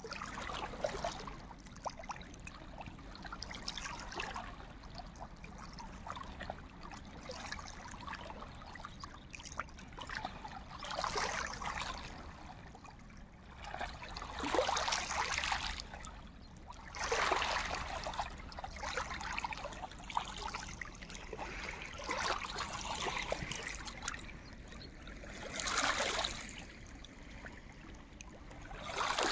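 Small waves lapping onto a pebble and stone shore, the wash swelling and fading every few seconds.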